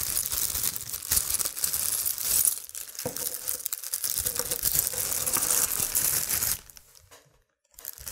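Clear plastic bag crinkling as it is opened and handled, with the small metal mounting hardware inside clinking. The crackling stops about six and a half seconds in, with a brief lull before it starts again near the end.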